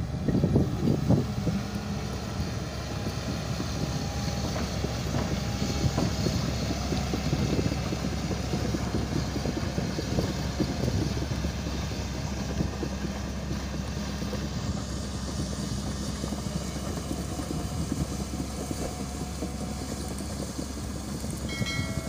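Diesel engine of a Caterpillar tracked excavator running steadily under load while the machine handles a large steel gas pipe slung on a cable from its bucket. A short electronic chime sounds near the end.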